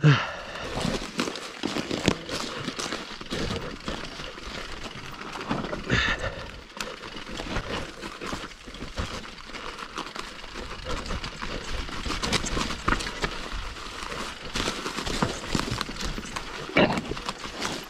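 Off-trail travel down through woodland undergrowth: twigs and leaf litter crackling and rustling, with irregular knocks and clatter over rough ground and a few louder hits along the way.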